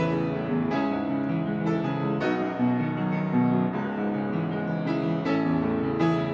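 Slow, soft piano music with sustained chords and new notes struck about once a second.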